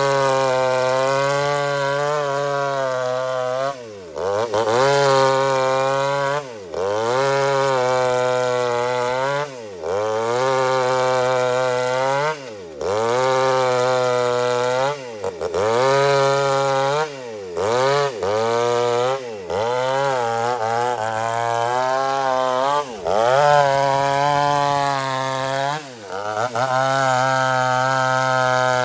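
Two-stroke chainsaw ripping lengthwise through an old teak log, running at high revs. Every two to three seconds the engine pitch dips briefly and climbs back up.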